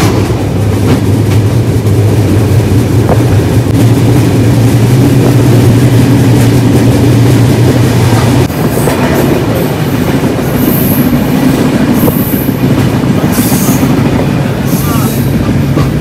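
Passenger train carriage running at speed on the rails: a loud, steady rolling rumble with rushing noise. In the second half, short high-pitched noises come and go over the rumble.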